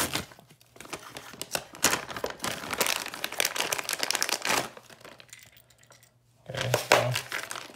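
Plastic packaging bag crinkling and rustling as it is torn open and handled, with a brief lull about five seconds in before more crinkling.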